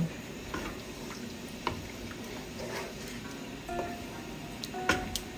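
A spoon stirring thick tomato stew in a pot: wet squelching with scattered light scrapes and knocks, the sharpest knock about five seconds in.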